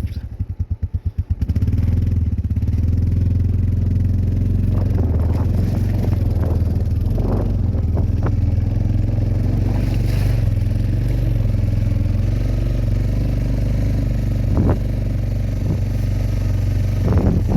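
Four-wheeler (ATV) engine running steadily under way over rough ground, with clattering and knocks from the machine bouncing. The engine briefly drops and pulses just after the start.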